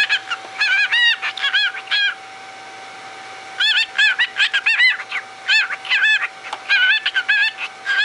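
Male cockatiel chattering: a rapid string of short, arched chirps and warbles, with a pause of about a second and a half partway through before the chatter resumes.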